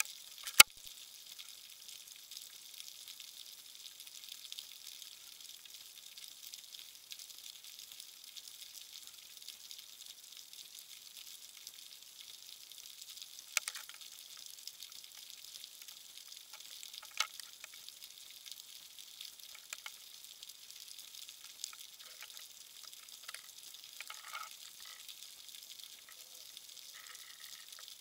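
Underwater ambient sea noise: a steady, faint, high crackling hiss like frying. Sharp clicks cut through it, a loud one about half a second in and two smaller ones about halfway through.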